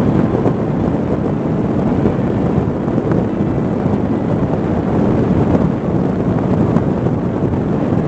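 Steady rush of air over a Parrot Disco fixed-wing drone gliding with its motor stopped, heard on its onboard microphone as wind noise, with no motor sound.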